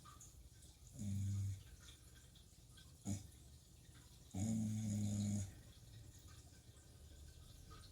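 Shiba Inu snoring in its sleep: two long, low, droning snores, one about a second in and a longer one of about a second near the middle, with short quick breaths between them.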